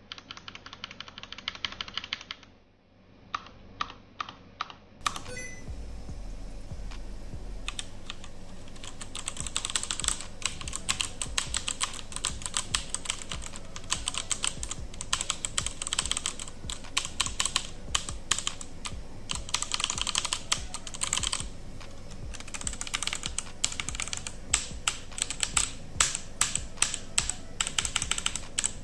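Typing on a Razer BlackWidow Elite mechanical keyboard: a rapid, continuous clatter of key clicks. About five seconds in, the sound turns brighter and fuller and the typing gets denser.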